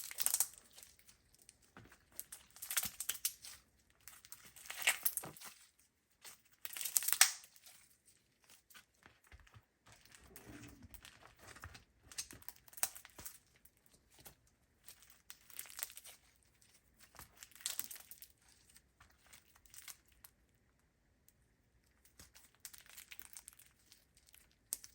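Slime being squeezed and worked by hand, crackling and popping in short bursts every second or two, the loudest about seven seconds in and fewer near the end.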